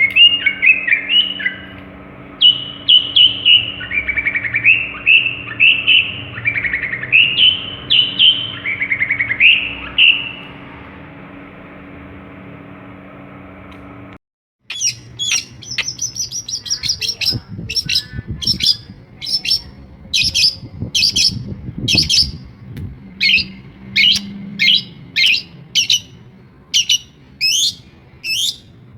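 Long-tailed shrike (pentet, cendet madura) singing a varied song of short mimicked phrases over a steady low hum. After a brief break about halfway, it switches to a long series of sharp repeated high notes, about one or two a second.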